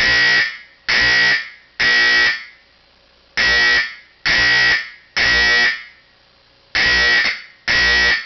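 A Simplex 4050 fire alarm horn, a 12-volt AC horn with a square diaphragm, sounding the temporal (code-3) evacuation pattern. It gives three half-second buzzing blasts with a 'burr' tone, then a pause, and the pattern repeats.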